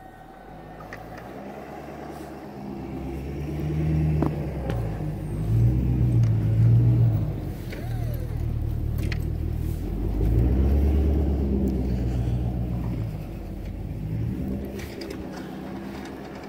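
Pickup truck engine revving under load while pushing snow with a front-mounted plow, swelling in two surges with a short ease-off between them.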